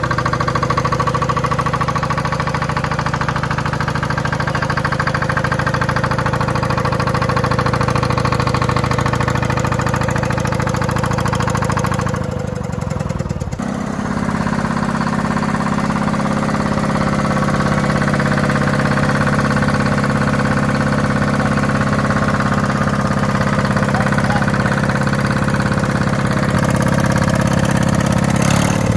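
Big old engines running steadily. About twelve seconds in, the pitch sags and the sound breaks off, then a different engine carries on at a steady run.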